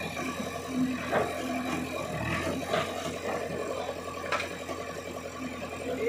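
JCB 3DX backhoe loader's diesel engine running steadily under hydraulic load while the backhoe bucket tips mud into a tractor trolley, with a few sharp knocks about a second, three seconds and four and a half seconds in.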